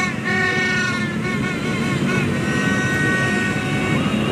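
Horns tooting over the running of a crowd of motorbikes in street traffic. Several short bending toots come about three a second in the first two seconds, then one steady held horn note until about four seconds in.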